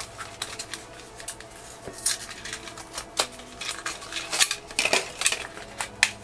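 Hard plastic clicks and clatters as a Puppy in My Pocket puppy carrier, a small plastic toy case, is handled and pried open by hand. The clicks come at irregular moments, a few sharper ones in the second half.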